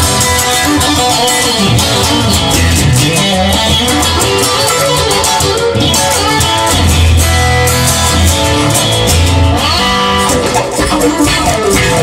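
Instrumental passage of a rock song with no vocals: guitar playing over bass and drums.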